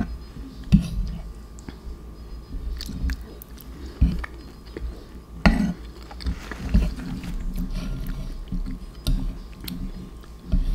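A person chewing Cheetos Cheesy Jalapeño mac and cheese close to the microphone, with irregular soft thumps and sharp clicks.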